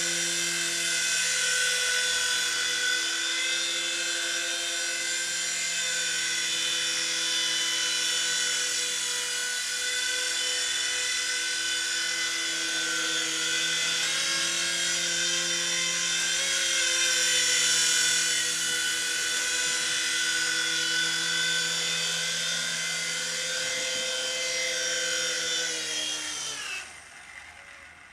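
Jamara EC135 DRF toy RC helicopter in flight, its small electric motors and rotors giving a steady whine whose pitch wavers a little with the throttle. Near the end the whine falls in pitch and dies away as the rotors spin down on landing.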